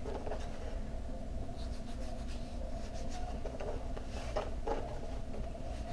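Hands pulling and pressing a soft sheet of fondant against the side of a cake: faint soft rubbing and rustling, a few slightly louder touches about four seconds in, over a steady low hum.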